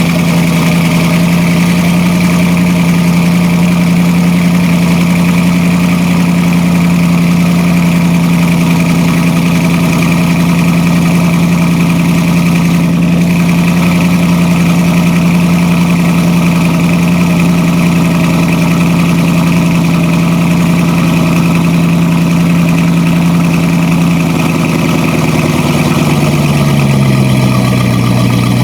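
Car engine idling at a raised, steady speed just after being started. Near the end the idle drops and settles lower, the usual fast idle after start-up coming down.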